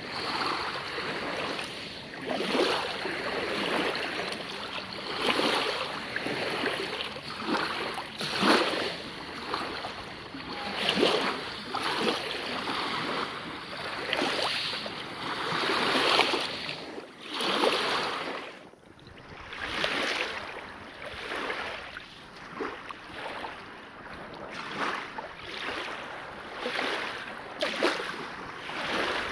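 Small waves washing up and drawing back over a fine pebble beach, rushing in a new swell every second or two.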